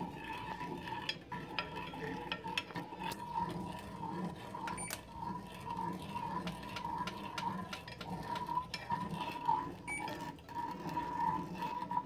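A spatula stirring and scraping a sugar-and-milk candy mixture in a saucepan on the stove, with many small irregular clicks and taps of the utensil against the pan.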